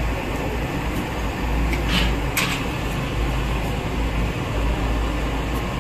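Steady low background rumble of a street-food shop, with two short crisp paper rustles about two seconds in, half a second apart, as flatbreads are handled on paper sheets.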